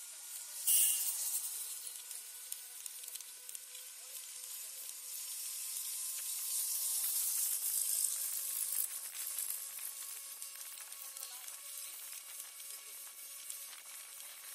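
Hissing road and wind noise heard from a moving vehicle, with a brief louder rush about a second in and a swell louder around the middle.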